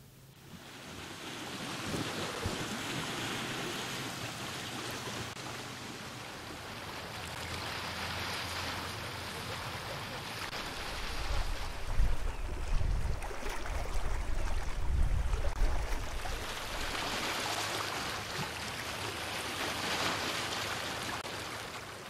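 Rushing sound of waves washing on a shore, swelling and ebbing every few seconds, with wind rumbling on the microphone about halfway through.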